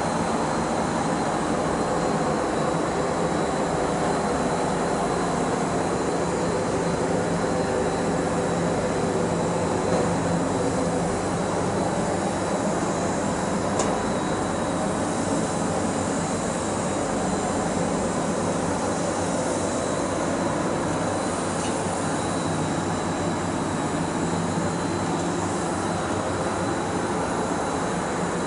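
Paint spray booth's ventilation fans running: a steady roar of moving air with a faint high whine.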